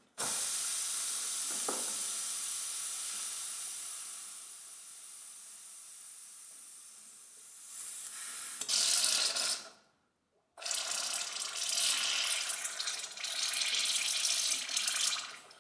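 Air hissing out of a loosened plug on a pressurised water line as it is bled, fading as the pressure falls. About eight seconds in it turns to a rougher, louder spitting of air and water into a bucket. That spitting breaks off briefly near ten seconds, then carries on, the sign of water arriving mixed with the last air in the line.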